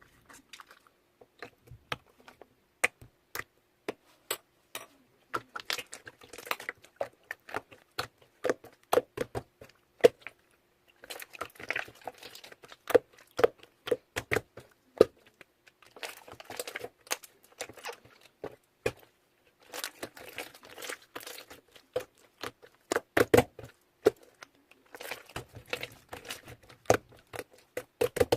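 Plastic parcel packaging being crinkled and torn open by hand: irregular bursts of rustling with many sharp clicks and snaps, in a small room.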